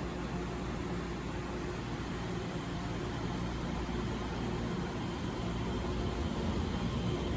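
Steady low rumble of a train in the station, with a faint constant hum, growing a little louder near the end.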